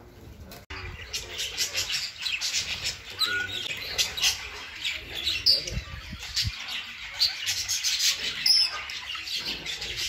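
A flock of budgerigars chattering: many quick, high chirps overlapping without a break, starting about a second in.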